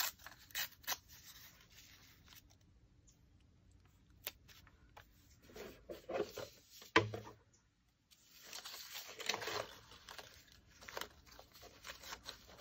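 Paper being handled and torn by hand: scattered rustles and short tearing sounds with small taps, a soft knock about seven seconds in, and a longer stretch of rustling and tearing a little after.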